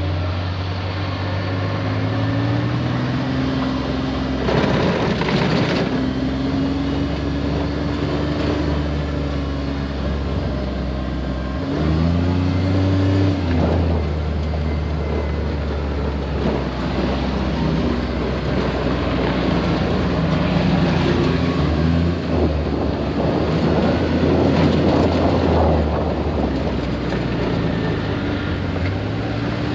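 Side-by-side UTV engine running as it drives along a dirt track, its pitch rising as it speeds up about two seconds in and again near the middle, over steady tyre and wind noise that swells in a few louder rushes.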